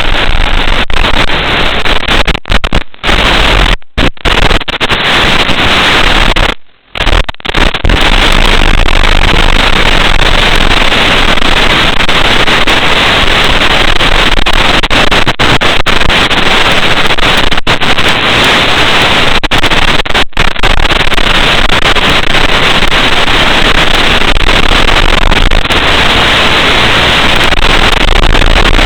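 Loud, steady hiss of radio static from an analog FPV video receiver's audio channel, breaking off in several short dropouts during the first eight seconds, one of them to near silence.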